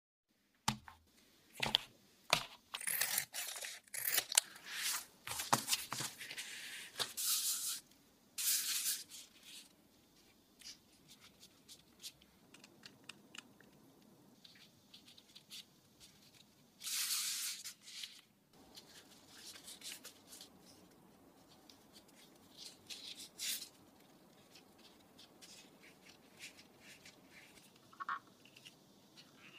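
Hands working pastry dough, a plastic piping bag and a plastic mooncake mold: a dense run of short rustling handling noises over the first eight seconds or so, then quieter scattered ones, with one longer burst about seventeen seconds in.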